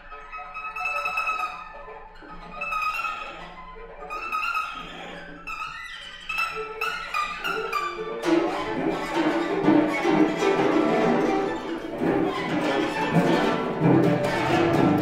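Cello bowed in free improvisation: at first separate swelling phrases with pauses between them, then busier short notes, and about halfway through a dense, louder mass of rapid notes.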